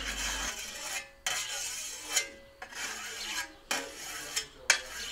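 Scythe blade being honed with a whetstone: the stone scrapes along the steel edge in separate strokes, about one a second.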